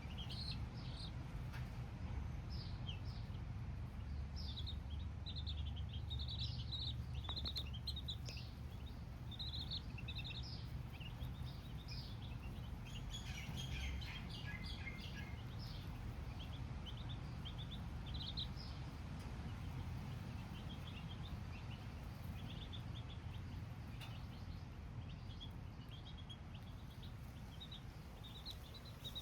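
Baby chicks cheeping: many short, high peeps, with a dense flurry of them about halfway through, over a low, steady rumble.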